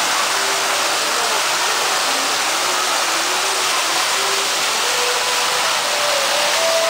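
Artificial waterfall pouring over rockwork into an aquarium pool: a steady rush of falling, splashing water.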